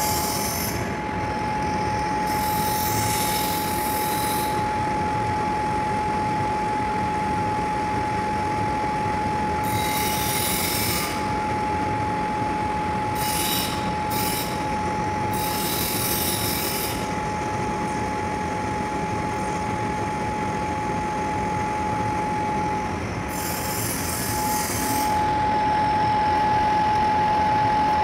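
Metal lathe running with a steady whine while its cutting tool turns down a metal rod. Bursts of high scraping hiss come and go every few seconds as the tool cuts.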